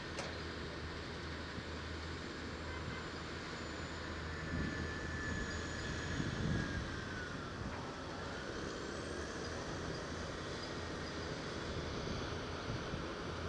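Backhoe loader's diesel engine running steadily, with a faint whine that dips and rises about halfway through.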